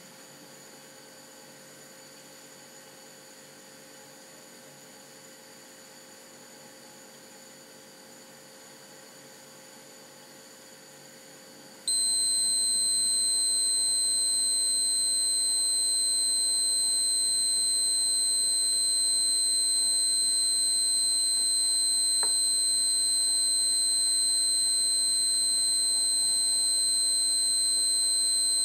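A replica Greddy Multi D/A water-temperature gauge's warning buzzer. A faint electrical hum gives way, partway through, to a sudden, steady high-pitched tone that holds without a break. The tone is the gauge's alert that the water temperature has passed its 65 °C warning setting.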